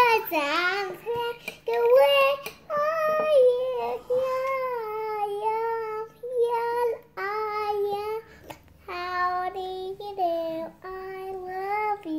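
A young child singing a tune in long held notes with short breaks between them, the pitch sliding and stepping from note to note.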